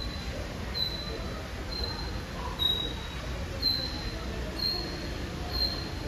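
A small bird repeating a short, high, even-pitched chirp about once a second, over a low steady background rumble.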